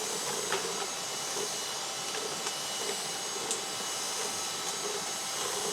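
Steady rushing background noise with a hiss, constant throughout, with a few faint clicks.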